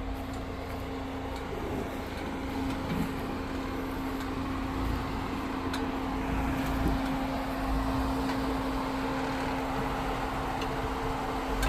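Off-road vehicle's engine running steadily at low revs: a constant hum over a low rumble.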